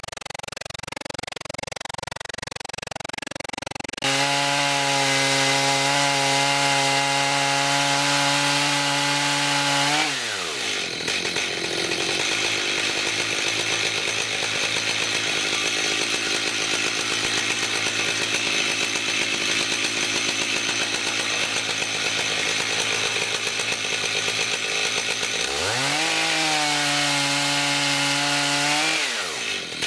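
A big chainsaw in an Alaskan chainsaw mill making a rip cut along a log. It comes in abruptly about four seconds in at full throttle, drops in pitch as the chain bites into the wood, and runs on under load with the steady rasp of chips being cut. Near the end it revs up free and then falls away as the throttle is released.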